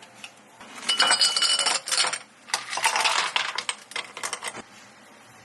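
Rapid clinking and rattling of hard cafe ware being handled, in two bursts of a second or two each, with a brief ringing note in the first burst.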